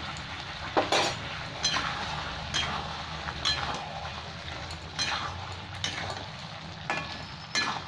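A metal spatula stirring and scraping rice, fish and peas in a metal kadai, with a scrape or light clink against the pan about once a second.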